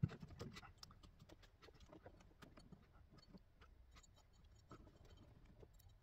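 Near silence, with faint scattered clicks and ticks of wire ends and small metal terminal parts being handled at a headlight switch, a few more in the first second.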